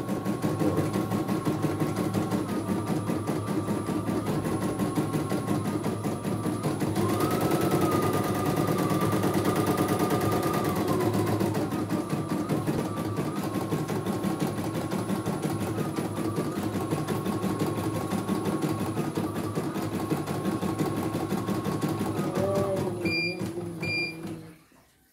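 CNY E900 computerized embroidery machine stitching at a rapid, even pace, its motor hum stepping up in pitch for a few seconds partway through. Near the end two short beeps sound and the machine stops.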